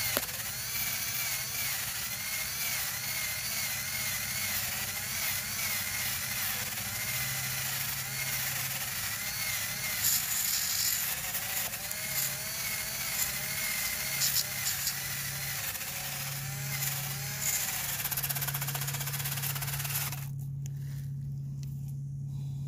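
Milwaukee 12-volt cordless drill spinning a wire cup brush against tree bark to scrub off spray paint: a steady motor whine whose pitch wavers under load, over a harsh scratching hiss. About twenty seconds in the scratching stops abruptly and the drill runs on free with only its motor whine.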